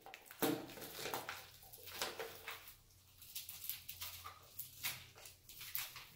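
The paper lid of a cup soup being peeled back from the cup by hand: a string of short crinkling, tearing scratches.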